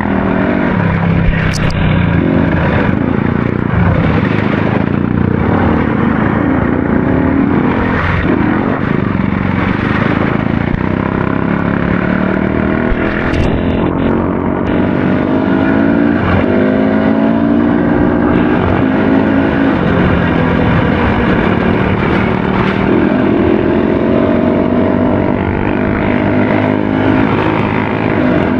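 Trail or enduro motorcycle engine running while riding, its pitch rising and falling again and again as the throttle opens and closes.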